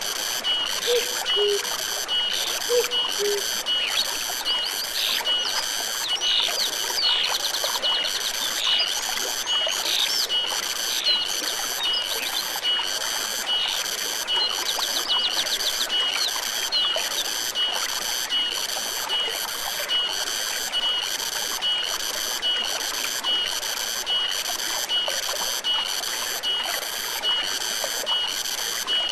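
Forest stream trickling steadily, with a high chirping pulse repeating about every two-thirds of a second throughout. Quick bird chirps come and go in the first half, and a few low calls sound in the first three seconds.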